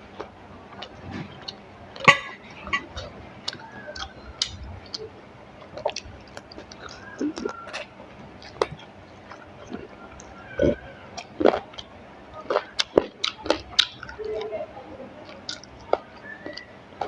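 Close-mic chewing of spicy chicken curry with rice, with many irregular short clicks and wet mouth sounds.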